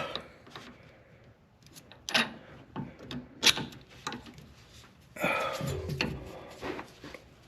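Scattered sharp metal clicks and knocks from a socket wrench with an extension being fitted and strained on a seized T55 Torx bolt of a Corvette rear wheel hub. A longer, rougher noisy stretch comes about five seconds in.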